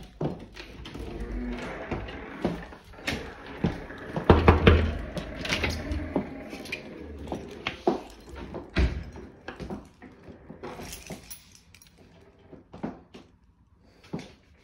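Knocks, clicks and rustling from an interior door being opened and passed through, with the recording phone handled against it. The sound is most crowded and loudest about four to six seconds in and thins to a few scattered clicks near the end.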